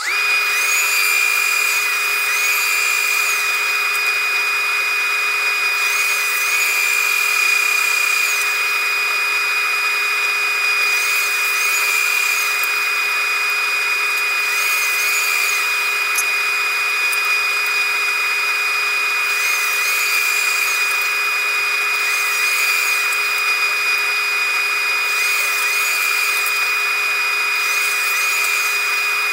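Power tool's electric motor running steadily with a high whine. Tones that rise and fall back come and go every couple of seconds over it.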